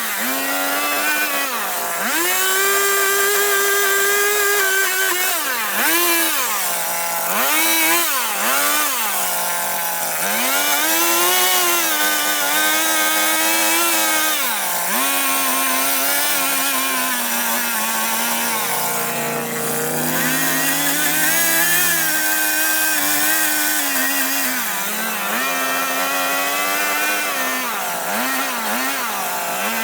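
Chainsaw carving wood. Its pitch rises and drops back again and again as the throttle is opened and released between cuts, with a lower stretch about two-thirds of the way through.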